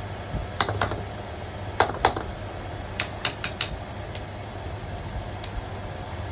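Sharp clicks and taps of tools and metal parts being handled during an electric fan coil repair, in small groups (four quick ones about three seconds in), over a steady low hum.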